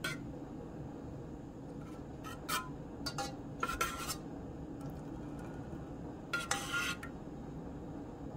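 Metal spoon scraping and clinking against a stainless steel saucepan in a handful of short strokes, stirring butter into a red wine reduction, over a steady low hum.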